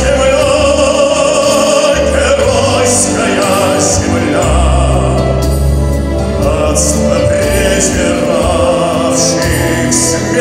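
A male soloist sings a slow song into a microphone over orchestral accompaniment, holding long, wavering notes.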